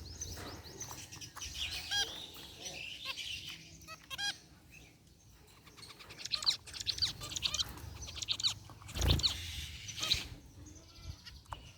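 Zebra finches calling in short, nasal, chirping notes, a busy chatter that thickens in the second half. A dull bump is heard about nine seconds in.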